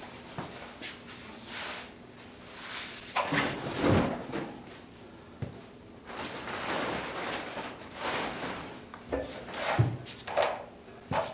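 Knocking, clatter and scraping of tools and parts being handled and sorted through, with louder knocks about four seconds in and again near ten seconds.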